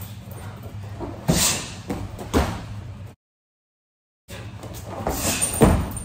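Hand strikes landing on a hanging heavy bag: two thuds a second apart, the sound cutting out completely for about a second, then two more thuds close together.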